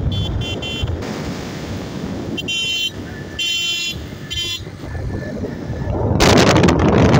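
Ride on a moving motorcycle: steady engine and road noise, with a horn beeping briefly several times in the first two-thirds. Near the end a loud rush of wind hits the microphone.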